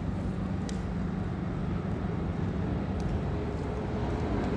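Steady street traffic noise, with a couple of faint clicks.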